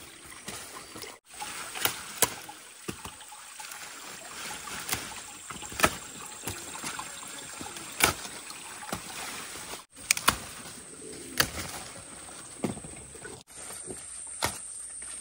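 Eggplant plants being handled during hand-picking: leaves rustling and stems snapping, heard as irregular sharp clicks and snaps every second or two over a faint steady hiss.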